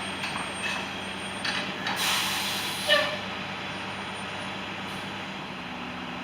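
Cat excavator's diesel engine running steadily, with a loud hiss about two seconds in and a short, sharp pitched sound just before three seconds.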